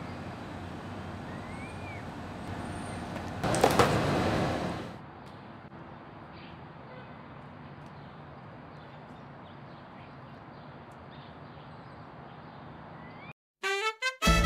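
Outdoor background noise with a few bird chirps, broken about three and a half seconds in by a loud burst of noise lasting about a second and a half. Quieter indoor room tone follows, and swing-style music starts near the end.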